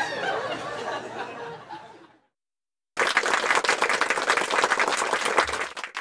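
A crowd's voices, chattering and laughing, fade out about two seconds in. After a second of silence comes about three seconds of crowd applause, which cuts off suddenly.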